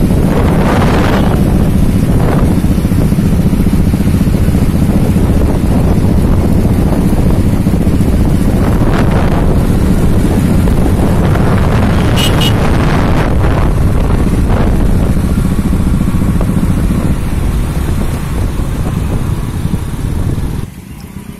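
Motorcycles running at road speed with heavy wind noise buffeting the microphone, a steady loud rush that drops away suddenly near the end.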